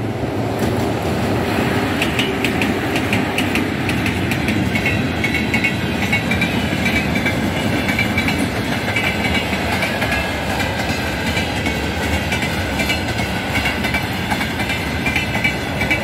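Freight train of boxcars and open wagons rolling past at close range onto a steel truss railway bridge: a steady rumble with frequent clacks of wheels over the rail joints. From about two seconds in, a high metallic squeal rides over it.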